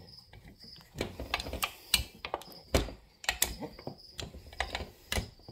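Irregular metallic clicks and taps from a hex driver turning the bolts that pull a Husqvarna 266 chainsaw's tight crankcase halves together over the crank bearing.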